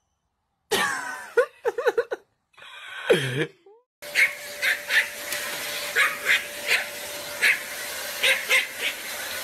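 A dog whining and howling in wavering calls that slide up and down in pitch, twice; then a Pomeranian giving short sharp yaps, about two a second, over a steady faint hum.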